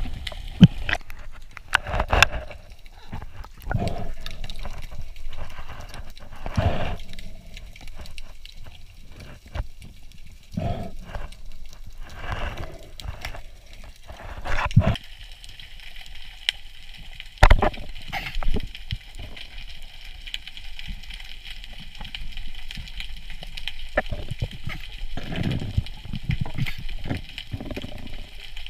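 Water sloshing and bubbling against a spearfisher's waterproof action camera while surfacing and diving, with irregular sharp knocks and clicks from handling the speargun and speared fish.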